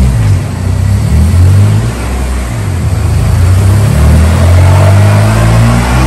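Honda K20 four-cylinder in a Civic EG running loud under load on a chassis dyno, its revs dipping about two seconds in and then climbing steadily near the end as it pulls in gear.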